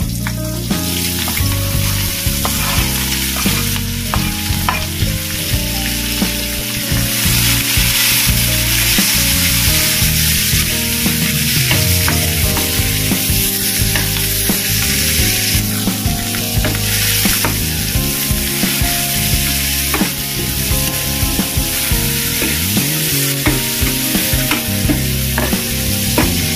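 Chopped shallots, garlic, chilies and tomatoes sizzling in hot oil in a nonstick wok, with a spatula stirring and scraping against the pan in short ticks and knocks. The sizzle swells within the first second as the spices go into the oil.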